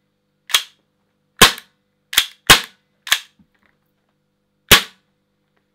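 Gas blowback airsoft pistol, an FNX-45 Tactical, firing six sharp cracks, each with the slide snapping back. The shots come at uneven intervals, with a quick pair about two and a half seconds in and a longer gap before the last one.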